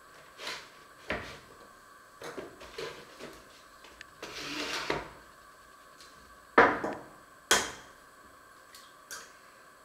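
Kitchen handling sounds: scattered knocks and clatters of utensils and containers being put down on a wooden counter. There is a brief scraping rustle about halfway through and two sharp knocks about a second apart near the end, over a faint steady hum.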